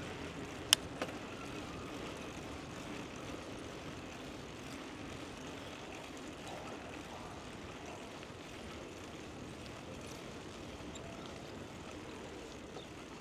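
Steady rolling noise of a bicycle ride picked up by a chest-mounted action camera, with two sharp clicks about a second in.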